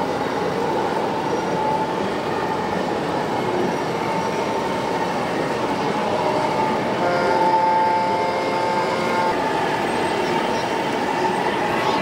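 Steady mechanical din with a horn sounding for about two and a half seconds, a little past halfway.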